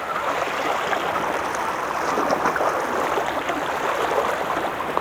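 Steady rushing of sea water washing along the shore.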